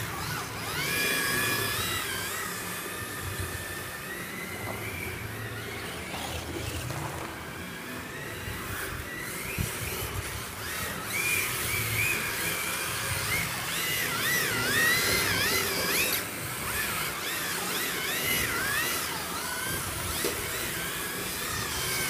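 Whine of electric RC drift cars' motors, rising and falling in pitch as the throttle is worked through the drifts, over a steady high hiss. The wavering whine is strongest from about halfway through.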